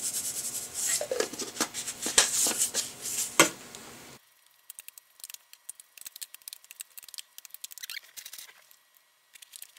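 Salt shaken from a shaker onto diced tomatoes, then a metal spoon stirring and scraping through the salsa in its container with crisp clicks. About four seconds in the sound drops suddenly to faint scattered clicks.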